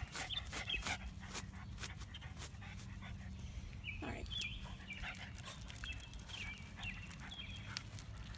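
A dog whining in short, high, squeaky calls, several in a row, with panting and light clicks over it.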